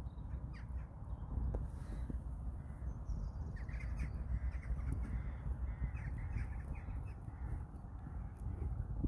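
Crows cawing several times in a row, roughly in the middle, over a steady low rumble of wind on the microphone.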